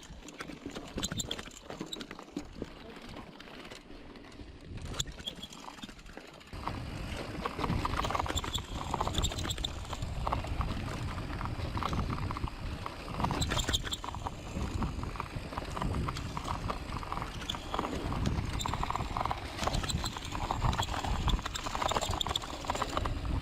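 Mountain bike rolling over rough trail, its frame and parts rattling and knocking, clearly louder from about six seconds in.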